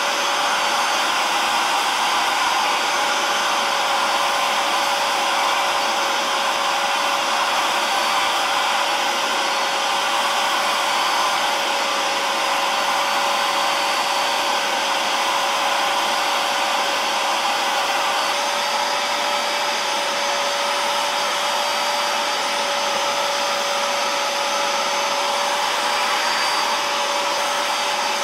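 Steady rushing noise of an upholstery-cleaning machine's motor running, with a constant whine held at one pitch.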